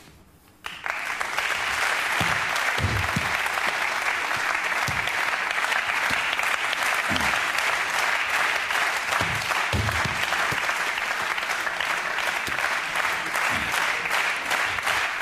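Studio audience applauding steadily; the clapping starts abruptly about a second in, with a few faint low thuds underneath.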